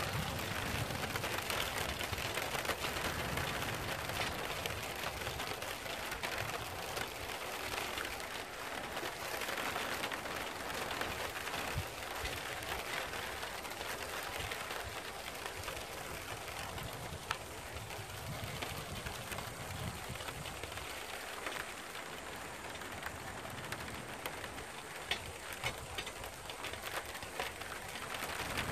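Rain falling steadily: an even hiss with scattered sharp drop ticks, a few louder ones near the end.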